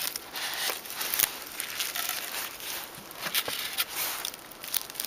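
Crinkling and scraping of plastic sheeting and a polystyrene insulation board being handled on top of a plastic-wrapped beehive, with many small clicks and crackles.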